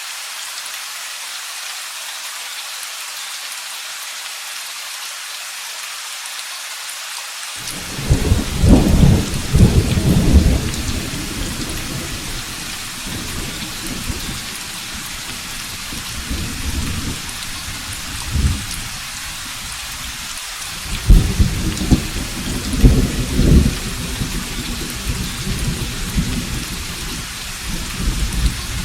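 Steady rain hissing throughout, with two loud rolls of thunder, one about a quarter of the way in and another past the two-thirds mark, each rumbling for a few seconds, and fainter rumbles between them.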